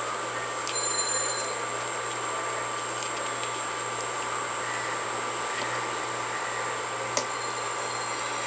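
Steady background hiss with a faint high whine, broken by a few light clicks.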